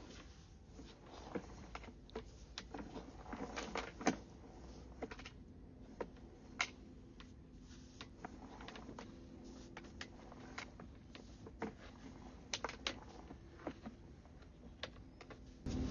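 Faint, irregular light clicks and knocks, about one or two a second, over a low steady hum.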